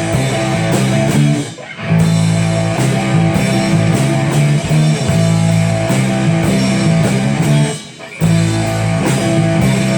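Rock band playing live without vocals: electric guitar over bass and drum kit. The band stops together briefly twice, about a second and a half in and about eight seconds in.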